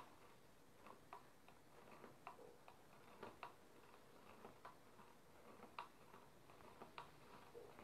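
Faint, irregular light clicks of a stirrer knocking against its container as caustic soda solution is stirred to dissolve it, over near silence.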